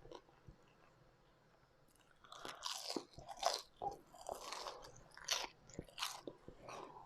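Close-up chewing of crunchy food, a run of irregular crunches starting about two seconds in after a near-silent pause.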